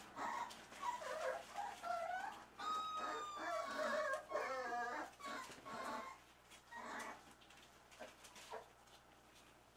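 Young dachshund puppies whining and squeaking in many short, high-pitched calls that bend in pitch, thinning out and growing quieter after about six seconds.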